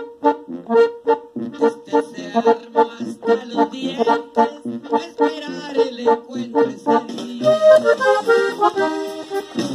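Hohner button accordion playing a norteño melody in short, evenly paced notes, with a quicker run of notes a little before the end.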